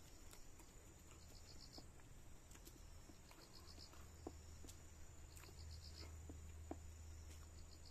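Faint insect chirping: short high chirps of four or five quick pulses, repeating every second or two over a steady thin high trill.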